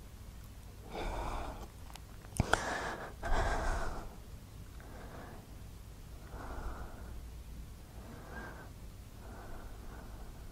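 A person breathing through the nose: two louder, noisy breaths with two sharp clicks between them in the first four seconds, then softer breaths about every second and a half.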